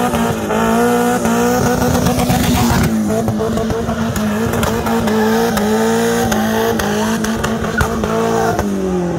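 Turbocharged Toyota 5A-FE four-cylinder engine in a Corolla held at high revs through a power slide, with the tyres spinning and squealing. Near the end the revs fall away.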